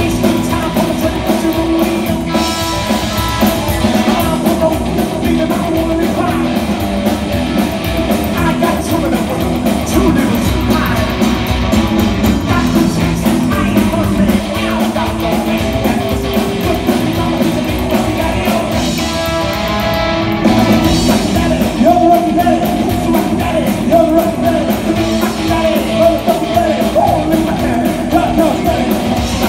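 Live rock and roll band playing loud: upright double bass, two electric guitars and a drum kit, with a sung vocal.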